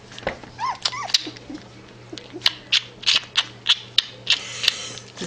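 A black puppy sucking and mouthing a rubber pacifier: a string of wet smacking clicks, with two short high squeaky whimpers about a second in.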